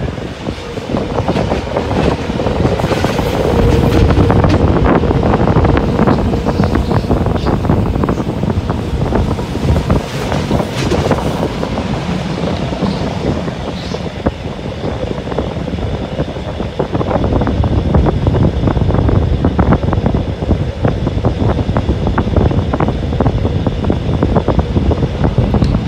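Rhaetian Railway Allegra electric train running on the rails, heard from an open window: a continuous rumble of the wheels with many short clicks over the track, growing louder for a few seconds near the start and again past the middle.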